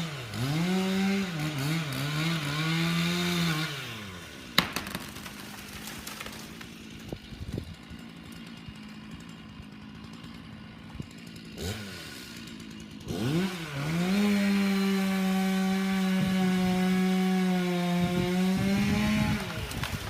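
Two-stroke chainsaw revving unevenly, dropping back to a low idle about four seconds in with a sharp click soon after. Later it is throttled up again and held at a steady high speed for several seconds, then falls off just before the end.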